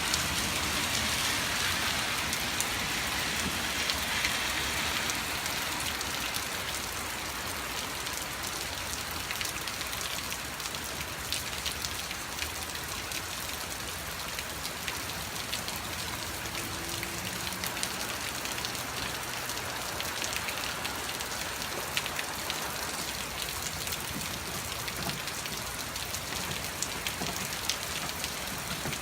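Heavy rain falling steadily, a dense hiss of drops pattering on surfaces, a little louder over the first few seconds before easing slightly.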